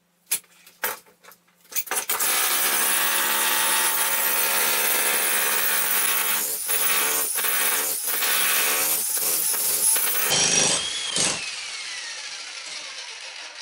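Electric jackhammer chiselling into a concrete slab floor. A few short knocks come first, then it runs hard and steady for about eight seconds, with brief breaks as the trigger is let off. Near the end it is released, and the motor winds down with a falling whine.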